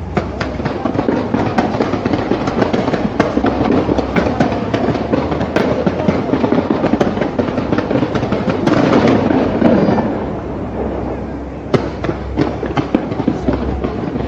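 Fireworks display going off in rapid, overlapping bangs and crackles, dipping briefly about eleven seconds in before the bangs pick up again.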